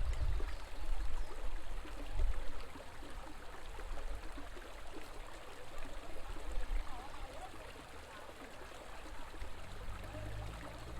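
River water flowing, a steady rushing babble. A low rumble is strong in the first couple of seconds, dies away, and comes back near the end.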